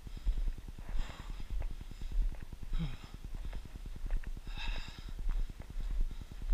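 A person breathing hard while walking, with three noisy breaths about a second, three seconds and nearly five seconds in. Under them runs rapid low knocking and rubbing from the jostled action camera.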